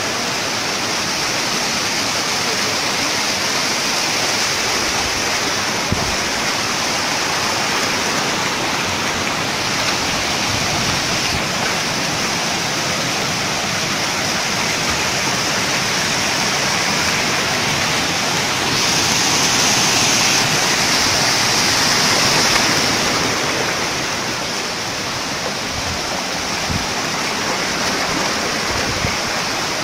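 Waterfall cascading over rock ledges: a steady, loud rush of falling water that swells a little for a few seconds past the middle.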